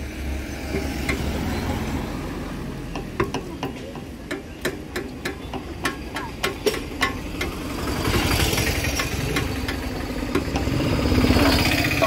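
Spanner and loosened bolts clinking on the Royal Enfield Bullet 350's stock exhaust fittings as the silencer is being unbolted: a run of light metal clinks, a few a second, in the middle. A vehicle's engine noise swells up over the last few seconds.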